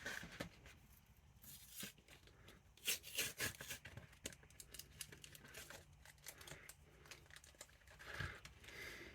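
Pokémon card pack wrapper being handled and torn open: faint crinkling and tearing with scattered small clicks, loudest about three seconds in.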